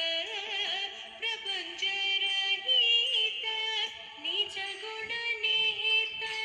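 Background music with a voice singing a melody over it.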